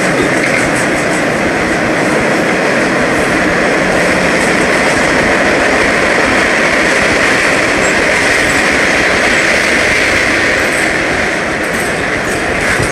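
MBTA Orange Line subway train in motion: a steady, loud rush of wheel and rail noise, with a little clicking from the track.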